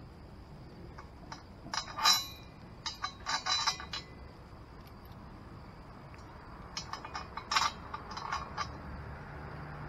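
Steel chain and its hook hardware clinking against the tip of a MaxxHaul truck crane's steel boom as they are handled by hand, in two bursts of rattling clinks: one starting about two seconds in, the other about seven seconds in.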